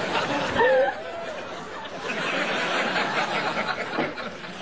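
Audience laughing, with a short high-pitched cry from a voice just under a second in.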